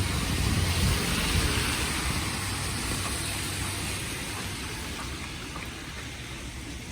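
A motor vehicle driving past and away, its low engine rumble and tyre hiss on the wet, snowy road fading steadily.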